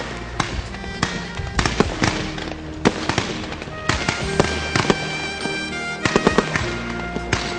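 A multi-shot aerial fireworks cake (Symphony 144) firing: quick, irregular bangs and crackles, several a second, over background music with sustained tones.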